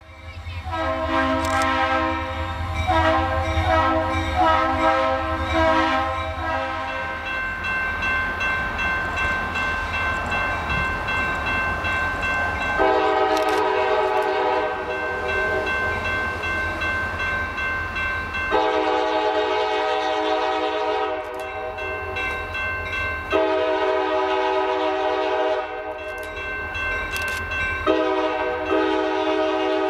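Diesel locomotive horn sounding a string of long blasts for a grade crossing as the train approaches, its chord shifting every few seconds, over a steady low rumble.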